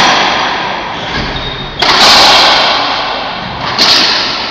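Racquetball struck hard in an enclosed court: a loud, sharp crack about two seconds in that echoes and dies away slowly, and a second, weaker crack near the end.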